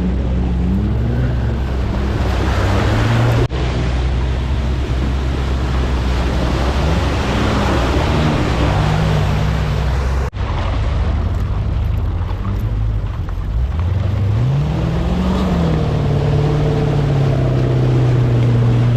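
Off-road 4x4 engines running and revving, their pitch rising and falling, over a steady rushing noise. The sound breaks off abruptly twice, once about three and a half seconds in and again about ten seconds in.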